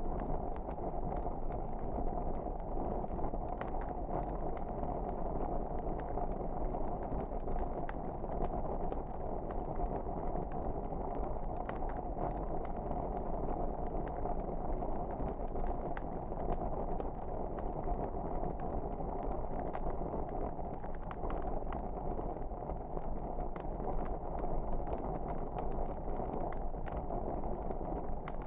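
Wood fire burning in a fireplace: a steady low rush with frequent small crackles and pops scattered throughout.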